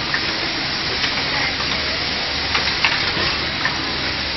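Automatic motor assembly machine at work: a steady hiss of factory noise with scattered sharp clicks and knocks from its stations.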